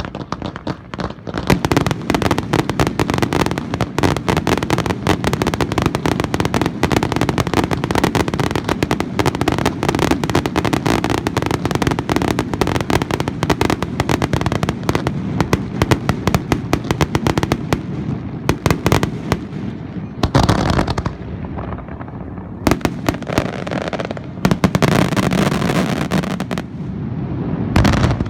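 Aerial fireworks bursting in a rapid, dense barrage of overlapping bangs and crackles, then thinning to a few separate, heavier booms with echo in the last third.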